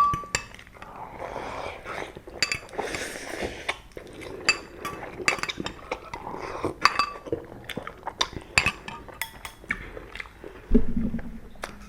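Utensils clinking and tapping against bowls and dishes while ramen is eaten: many short, scattered clicks, some with a brief ring.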